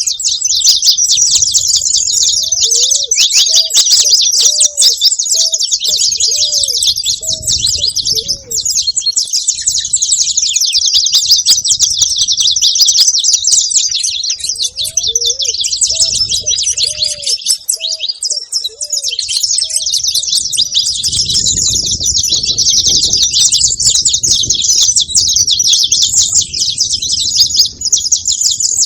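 Saffron finch chirping rapidly and continuously in a dense, high-pitched stream. Twice, a run of about eight lower, evenly spaced arching notes sounds underneath, each run lasting several seconds.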